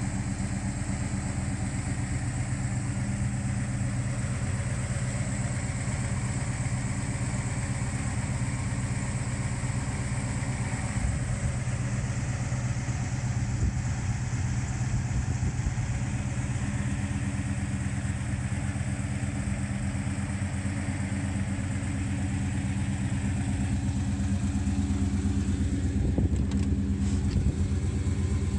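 A 1972 Chevrolet El Camino SS's 454 big-block V8 idling steadily.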